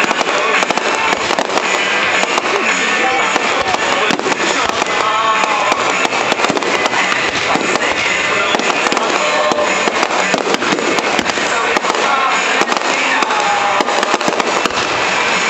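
Fireworks bursting and crackling in rapid, dense pops over loud music.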